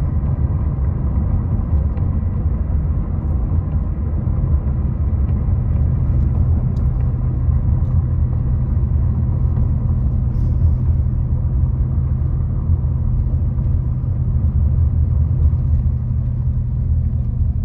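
Car driving on a road, heard from inside the cabin: a steady low rumble of tyres and engine.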